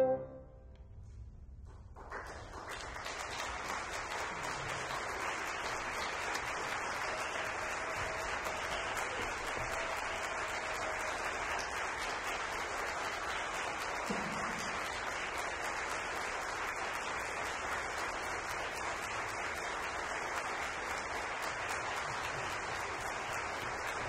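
The trio's final chord on clarinet, bassoon and piano dies away into about two seconds of hush, then a theatre audience applauds steadily.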